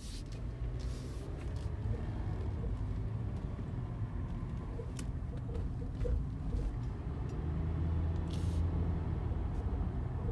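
A 2018 Toyota 4Runner TRD Off-Road on the move, with a steady low rumble and scattered light clicks and knocks at irregular times. The clicks are a rattle whose source the owner cannot find.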